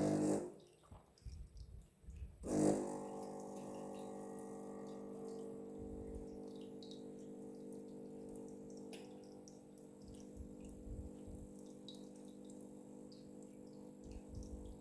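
A loud thump, then about two and a half seconds in an espresso machine's pump switches on and hums steadily.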